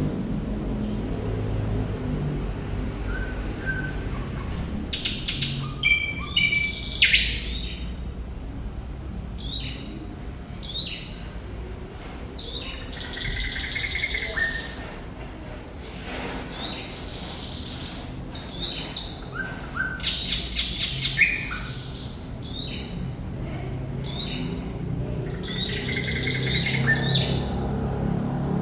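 Thrush nightingale singing: a varied song of short whistled notes, rapid clicking rattles and harsh buzzy phrases, broken by short pauses.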